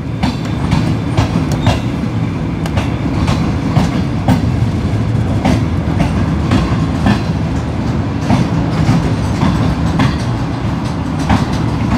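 Green Line Express passenger train rolling along the track: a steady low rumble with repeated clacks of the wheels over rail joints, about one or two a second.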